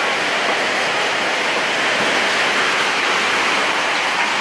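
Muddy floodwater rushing fast across a paved floor, a loud steady wash of churning water.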